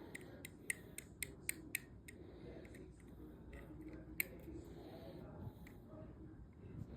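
Sharp clicks and snips from packaging being worked open by hand: several in quick succession in the first two seconds, then one more a little past halfway.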